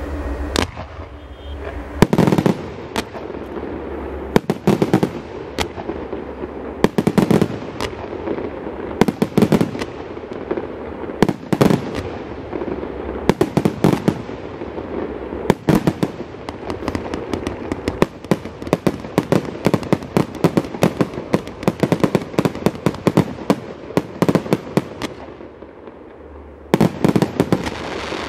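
A 150-shot, 30 mm fireworks cake firing in quick succession: a long string of sharp launch thumps and aerial bursts, the loudest coming about every two seconds with smaller shots in between. Near the end it eases off for about two seconds, then a fast run of shots follows.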